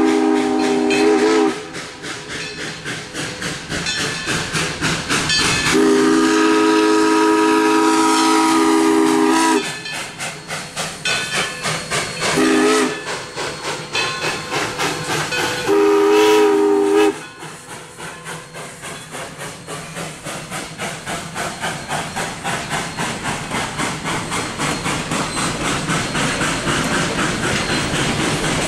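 Baldwin 2-8-0 steam locomotive's chime whistle, several notes at once, blowing long, long, short, long: the standard grade-crossing signal. Its exhaust beats steadily between the blasts. After the last blast the passenger cars roll past with a rhythmic clickety-clack of wheels over rail joints that grows louder.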